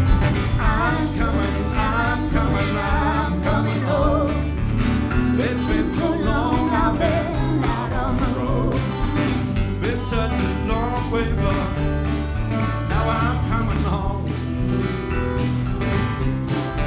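Live band playing a country-style ballad: a woman sings the lead melody over strummed acoustic guitar, bass and drums with a steady ticking cymbal beat.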